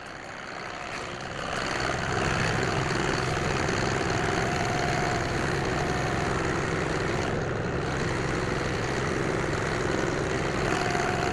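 A vehicle's engine running, getting louder over the first two seconds and then holding steady, as it is driven to pull up and back in.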